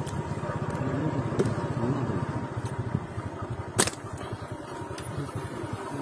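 A small engine running steadily nearby, a rapid low chugging that fades near the end, with a single sharp click a little before four seconds in.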